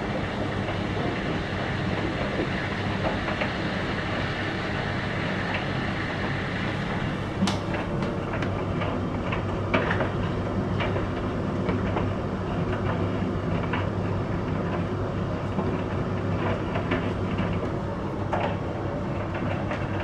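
Bosch Exxcel condenser tumble dryer running a drying cycle with a load of towels: a steady motor hum and drum rumble, with a few light knocks from about seven seconds in.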